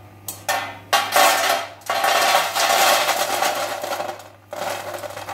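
Crispy fried, spice-batter-coated peanuts poured from a wire strainer onto a steel platter, clattering and rattling in several pours. The hard, dry rattle is the sign of how crisp they have fried.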